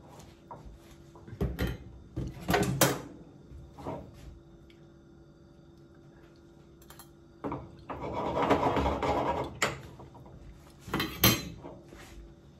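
Penne in beet purée being stirred and tossed in a small frying pan: a series of clinks and knocks from the spatula and pan, with a longer stretch of scraping about eight seconds in.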